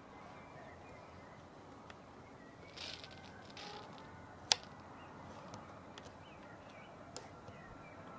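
Faint outdoor pre-dawn background with scattered distant bird chirps. There are two short hissy rustles about three seconds in, a single sharp click about four and a half seconds in, and a smaller click near the end.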